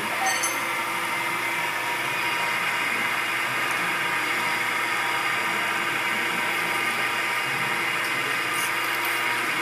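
Stone lathe running steadily at speed, a constant mechanical whine with several steady tones and no change in speed.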